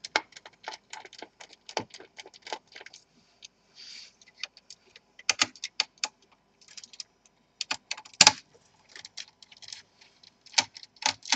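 Irregular small clicks and taps of a screwdriver working the motherboard screws out of a Dell Alienware M14x laptop, with metal parts being handled. A short scraping rustle comes about four seconds in, and a sharper knock just after eight seconds is the loudest.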